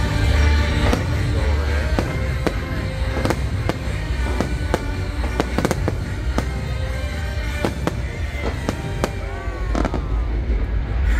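Fireworks bursting overhead in quick succession, about two bangs a second, over loud show music with a heavy bass.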